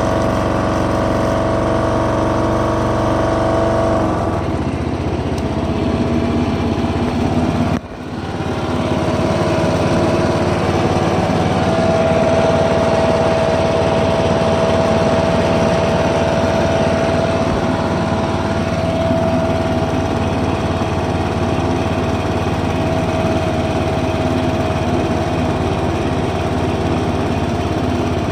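Husqvarna Rider 970 ride-on mower engine running steadily as the cutting deck is lowered and raised and the blades engaged. The note changes about four seconds in and dips briefly near eight seconds, then runs on steadily with a high whine.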